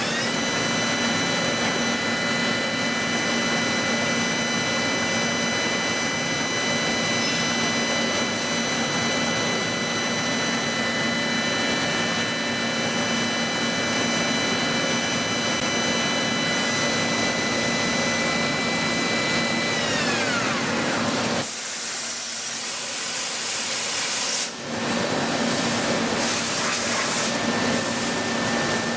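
CNC machine tool running with its spindle whining: the whine rises as it spins up, holds a steady pitch, then falls away as it winds down about twenty seconds in. A few seconds of loud spraying hiss follow, over a steady machine hum.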